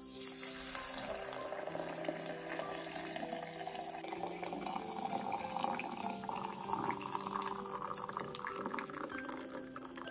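Hot water poured from an electric kettle into a glass onto an effervescent vitamin C tablet, with a steady splashing stream whose pitch rises slowly as the glass fills.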